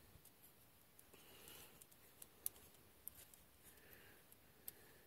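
Near silence, broken by a few faint, scattered clicks of plastic parts as a Britains toy hay baler is handled and its mechanism tried.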